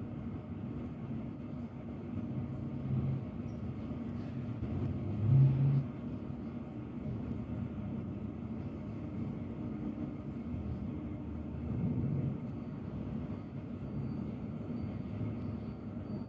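Low, steady outdoor rumble with a brief louder swell about five seconds in and a smaller one near twelve seconds.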